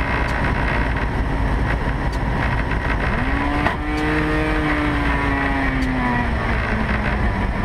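Rans S-10 Sakota single-engine light aircraft in flight, heard from inside the open cockpit: loud, steady engine and wind noise. About three seconds in, a whining tone rises, then slowly falls away over the next few seconds.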